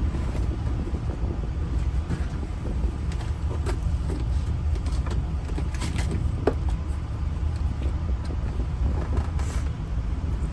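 Steady low rumble of an idling vehicle engine, with a few light clicks scattered through it.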